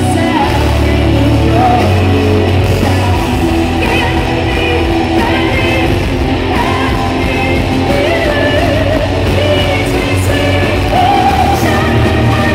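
Symphonic metal band playing live and loud: distorted electric guitars, bass and drums, with singing over them.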